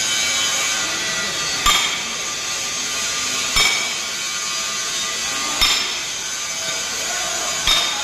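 Hammer blows on a steel crane wheel assembly: four sharp strikes about two seconds apart, each with a short metallic ring, over steady workshop noise.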